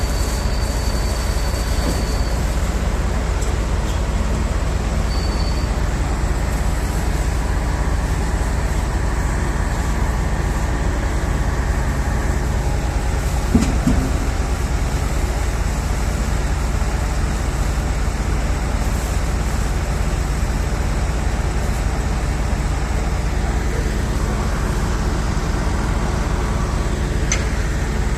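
Heavy truck diesel engine running steadily under load, a deep continuous drone, with a single knock about halfway through.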